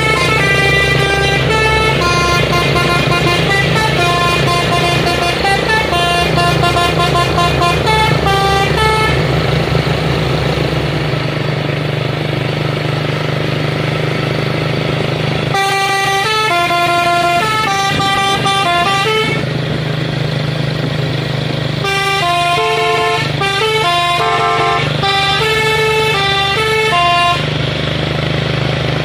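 Trucks' multi-tone musical air horns, the 'telolet' kind, playing quick tunes of changing notes in three spells, about nine seconds, then four, then five. Under them runs the steady hum of the heavy trucks' diesel engines pulling up the climb.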